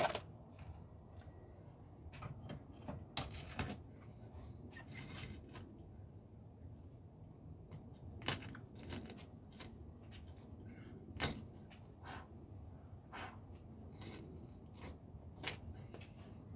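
Scattered light clicks and metallic clinks of hand tools during windshield removal work on the car, about a dozen spread irregularly, over a low background rumble.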